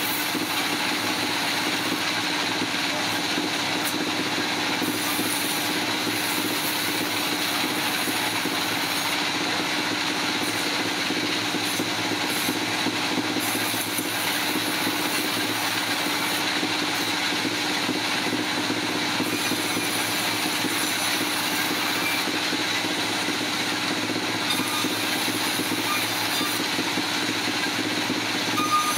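Machinery running steadily, a constant hum with a thin whine above it, with no change in load.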